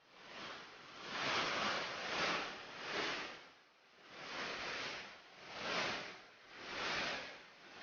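Flash-flood water rushing between rocks after heavy rain: a loud rushing hiss that swells and fades about once a second as the torrent surges.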